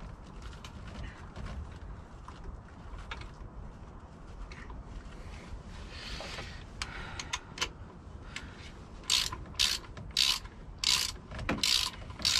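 Socket ratchet being worked to back out the oil reservoir plug on a 7.3 Powerstroke's high-pressure oil pump: light tool clicks and clinks at first, then, about nine seconds in, a run of loud ratcheting strokes about twice a second.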